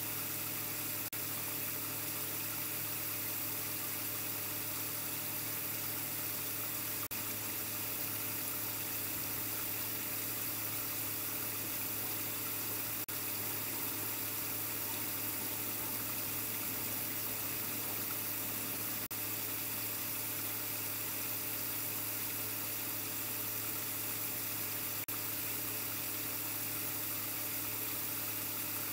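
Steady low hum and hiss that does not change, with a faint click about every six seconds.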